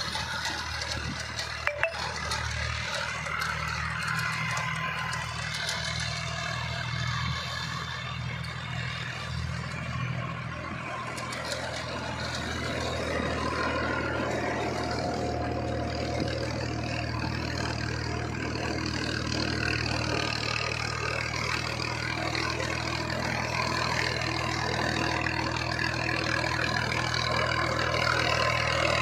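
A diesel tractor engine runs steadily under load while pulling a rotary tiller through the soil, with a rough churning noise over the engine's hum. The sound grows slowly louder as the tractor comes closer. There are two sharp clicks about two seconds in.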